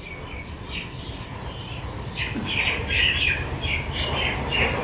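Birds chirping and squawking in short repeated calls, sparse at first and busier from about two seconds in, over a steady low rumble.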